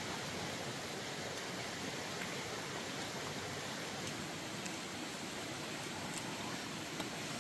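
Steady rushing background noise, even and unbroken, with a few faint ticks about four, six and seven seconds in.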